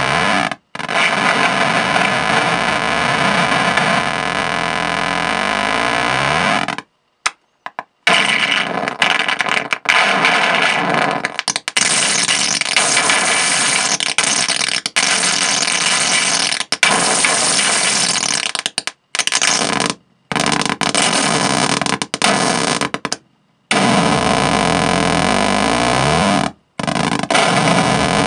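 Contact microphone on a dangling aluminium shaving, fed through an RMA Mudlark fuzz pedal with the gain controls turned way up: a loud, harsh wall of fuzz noise, semi-self-oscillating, with sliding pitches low down near the start and end. It cuts off abruptly to silence several times.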